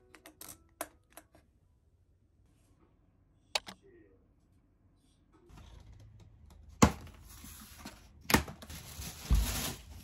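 Small objects set down on a tabletop with light clicks and taps. Then a strapped cardboard box is unpacked: cardboard and plastic wrapping rustle, with two sharp snaps and a dull thump.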